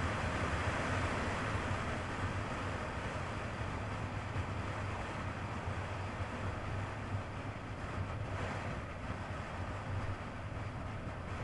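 Wind rushing over the action camera's microphone with the 1999 Kawasaki ZX-9R's inline-four engine running underneath as the motorcycle rides along at a steady pace. The rush eases a little toward the end.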